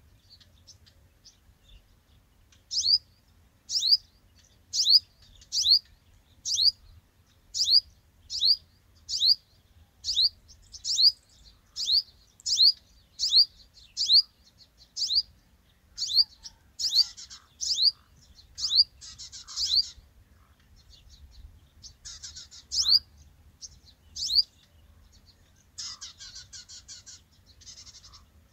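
A bird calling: a short, high, upward-sweeping note repeated about once a second, stopping a few seconds before the end, mixed with bursts of rapid chattering that take over near the end.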